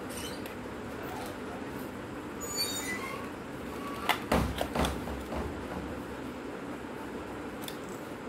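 A plastic film-camera body being handled on a hard bench: a short squeaky scrape, then three or four sharp plastic clicks and knocks in quick succession a little before the middle, over a steady background hum.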